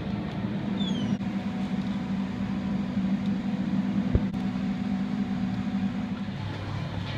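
Steady low hum of a supermarket freezer cabinet with its glass door held open, stopping a little after six seconds. A short falling squeak comes about a second in, and a single knock just after four seconds.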